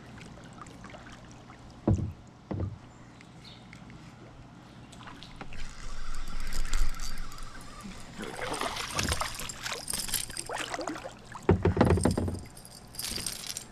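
Kayak sounds on the water: two short knocks against the hull about two seconds in, then a longer stretch of water noise with clattering and knocking from handling the boat and gear.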